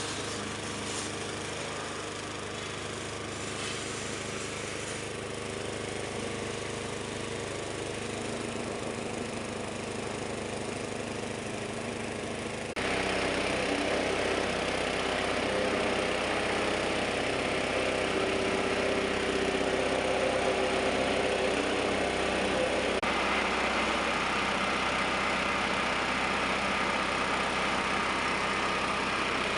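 Engine-driven grinding mill running steadily with a continuous mechanical drone. The sound jumps abruptly louder and brighter about 13 seconds in and stays at that level.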